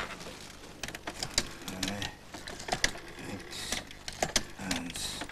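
Telephone being dialed: several short runs of rapid mechanical clicks from the dial, with a little clatter of the handset.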